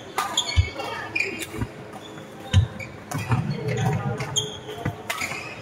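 Badminton rally: rackets striking a shuttlecock in sharp cracks, players' shoes squeaking on the wooden court floor, and footsteps thudding on it.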